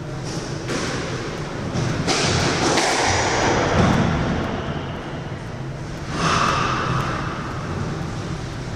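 A few sharp knocks of a squash ball struck by rackets and hitting the court walls, ringing in the enclosed court.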